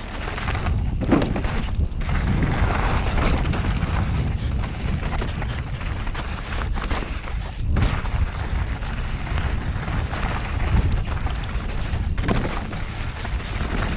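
Mountain bike ridden fast down a dry dirt and gravel trail: wind buffeting the microphone with a steady low rumble, while the tyres crunch over loose dirt and rocks with frequent knocks and rattles.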